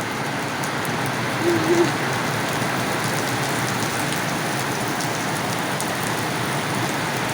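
Steady heavy rain falling, an even rushing hiss, with a brief short tone about one and a half seconds in.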